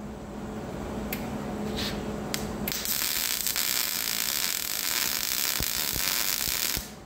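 Electric arc welding on the end of a steel axle shaft. Three brief bursts come in the first few seconds, then a steady welding hiss runs for about four seconds and cuts off abruptly near the end.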